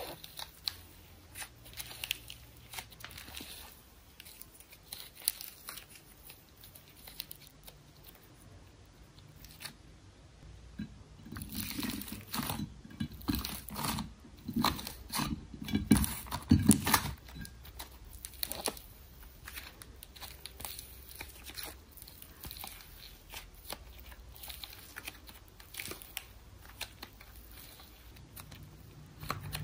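Hands kneading, pressing and stretching thick, clay-like slime: scattered small crackles, tearing sounds and soft pops, denser and louder about halfway through while the coloured pieces are pressed together.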